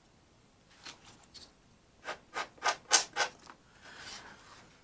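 Fingers rubbing over the sanded glazing-putty wing fillet of a balsa model airplane, feeling for low spots that still need filling. A few faint strokes come first, then a run of five quicker rubs about three a second, then one softer, longer rub.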